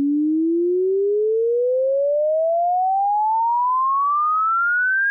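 Software-generated pure sine tone sweeping smoothly upward in pitch at an even musical rate (a logarithmic sweep) from A3 at 220 Hz toward A6 at 1760 Hz, at a steady loudness.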